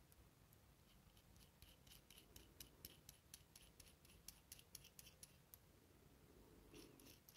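Faint, quick metallic clicks and ticks, about a dozen in a few seconds with a couple more near the end, from the small metal and plastic parts of a keyless drill chuck being handled and worked apart by hand.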